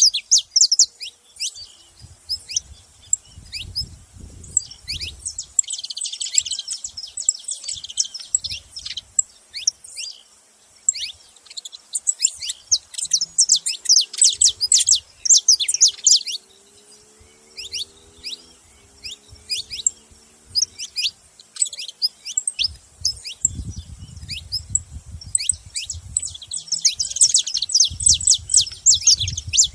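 Saffron finch calling: rapid runs of sharp, high, downward-sweeping chips in bouts, with a short lull about two-thirds of the way through.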